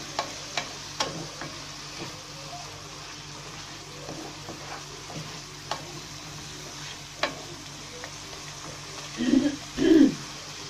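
Onion, ginger-garlic and spice masala sizzling in hot oil in a nonstick pan as it is fried down and stirred with a wooden spatula. The spatula clicks against the pan now and then. Near the end there are two short louder sounds.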